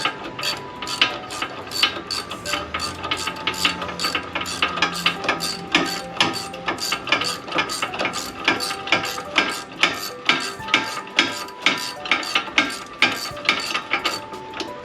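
Ratchet wrench clicking steadily, several clicks a second, while working the rear caliper mounting bracket bolts loose.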